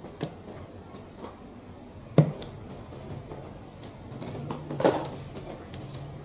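A few sharp knocks and clatter, the loudest about two seconds in and another near the five-second mark, over a steady low hum.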